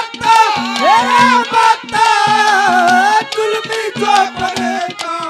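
A young boy singing a Haryanvi ragni in a high, wavering voice, with live harmonium and hand-drum accompaniment.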